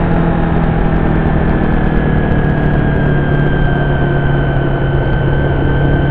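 Honda VFR750's V4 engine running as the bike rides along, its note sinking slowly as the revs ease off, picked up by a camera mounted on the fuel tank.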